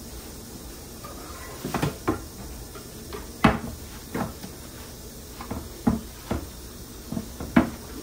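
A wooden cutting board being handled on a kitchen counter: about nine irregular knocks and clatters, two of them louder than the rest.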